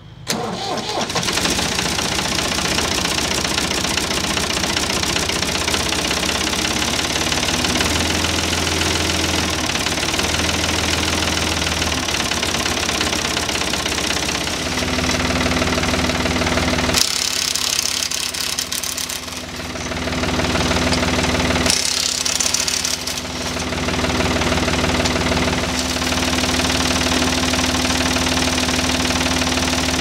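Ford 555 backhoe's diesel engine starting almost at once and running steadily, its fuel system freshly bled of air after a filter change. About halfway through a steady whine joins in, and two short bursts of hiss follow a few seconds apart.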